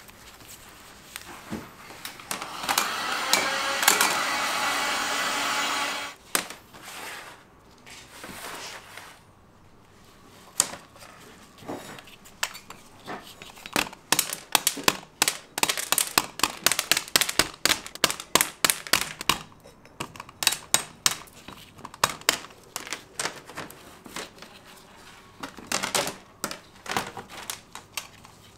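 Handmade hard candy being cut and handled: a steady hissing noise for about four seconds, then a long run of sharp, irregular clicks, several a second.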